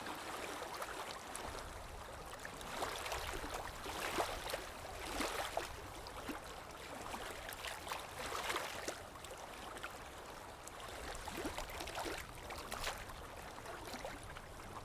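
Shallow river water running, with scattered small splashes and trickles coming and going.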